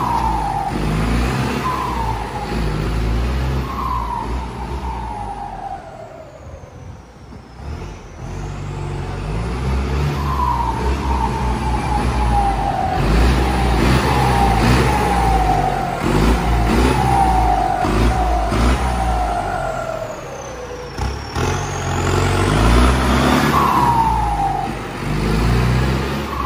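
New Holland 7740 tractor's turbocharged diesel engine revved over and over, each rev-up followed by a whistle that falls in pitch as it winds back down. It drops back toward idle for a couple of seconds about a quarter of the way through, then the revving picks up again.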